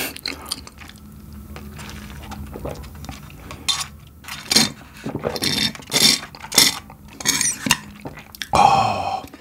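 Milk sipped through a plastic straw from a small plastic bottle. A few seconds in comes a run of short slurps, swallows and light clicks of the bottle and straw, with a brief vocal sound near the end.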